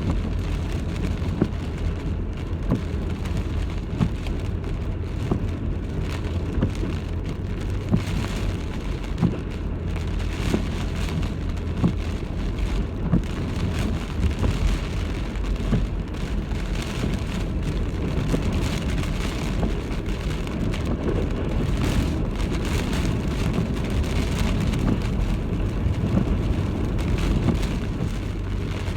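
Typhoon rainstorm: heavy rain and wind, with a steady low rumble and many sharp drops striking at irregular moments throughout.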